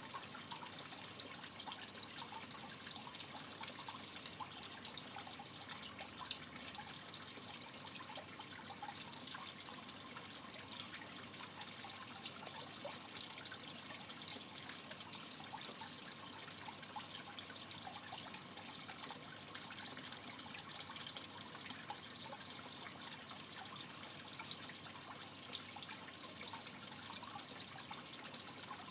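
Aquarium water trickling steadily, with fine crackles throughout. A faint high-pitched whine comes and goes over it in stretches of a few seconds.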